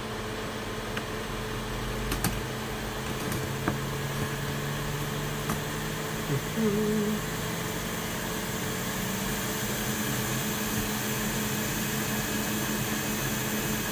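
Hot-air rework station blowing steadily: an even whooshing hiss over a low hum, with a few faint clicks of tools on the board.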